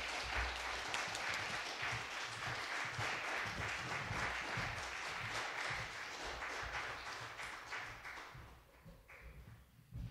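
An audience applauding, a dense patter of many hands clapping that dies away about eight or nine seconds in.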